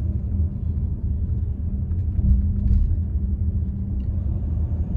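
Steady low rumble of a car on the move, heard from inside the cabin.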